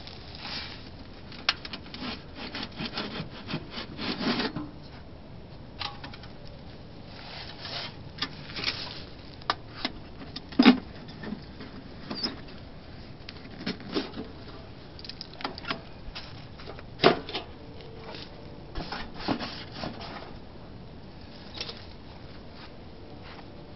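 Metal clinks, knocks and scrapes as the tin-can stovepipe and top are lifted off a steel ammo-can wood stove and a stainless steel grill plate is set in place on it. Two sharper knocks stand out, one near the middle and another about six seconds later.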